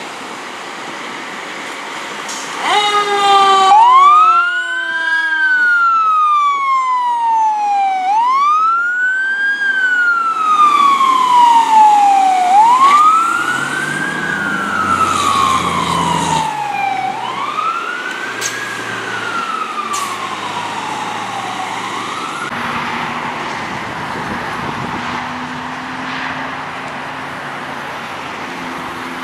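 Pierce fire engine's siren starting up about three seconds in and wailing, each cycle a quick rise in pitch and a slow fall lasting four to five seconds. The siren stops about three-quarters of the way through, leaving steady road traffic noise.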